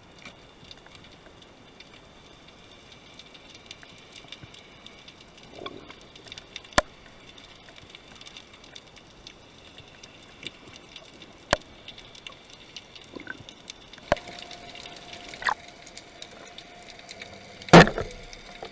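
Underwater sound picked up through a camera housing: a faint steady background with sharp clicks and knocks from spearfishing gear, the loudest a heavy knock near the end. A faint steady hum joins about two-thirds in.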